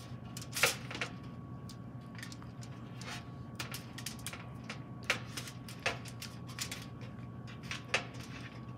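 Kitchen handling noises: scattered sharp clicks and taps of utensils and food being worked at a counter, the loudest just over half a second in and near the end, over a steady low hum.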